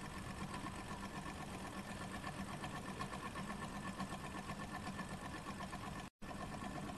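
STARPOWER QX6 mini hot-air Stirling engine running steadily on its methylated-spirits burner, the flywheel and linkages making a fast, even light clatter. The freshly assembled engine runs smoothly, with a split-second gap in the sound about six seconds in.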